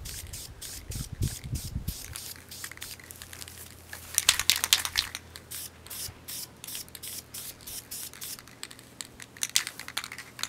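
Aerosol spray-paint can hissing in many short bursts as a coat of paint goes onto a scooter deck, with louder clusters about four seconds in and again near the end.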